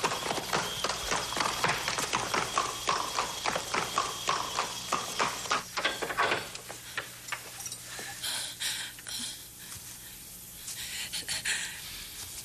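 Horse's hooves clattering in a quick run of beats, thinning out and fading after about six seconds. Softer scuffing and rustling follow near the end.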